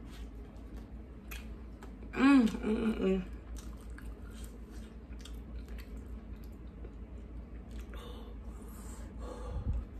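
A person chewing crunchy fried chicken nuggets close to the microphone, with small crackles and clicks all through. A brief vocal sound about two seconds in is the loudest moment.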